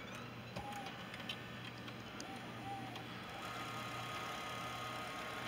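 Sony DCR-TRV520 Digital8 camcorder rewinding its tape: a faint mechanical whir with a few light clicks. A steady high whine joins in about three and a half seconds in.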